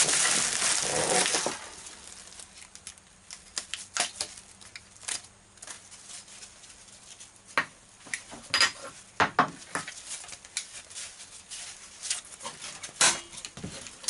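Bubble wrap and plastic packaging crinkling loudly for about the first second and a half. Then come scattered rustles and light clicks as seat belts and their metal hardware are lifted out of a cardboard box.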